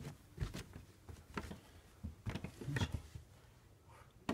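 Siberian husky puppy's paws and claws tapping on a wooden floor in a few irregular clusters of light steps.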